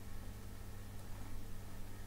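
Steady low electrical hum with a faint even hiss, and no distinct sounds: room tone.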